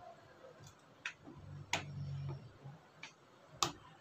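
About five sharp, irregularly spaced clicks or light taps, the loudest near the end, with a faint low hum around the middle.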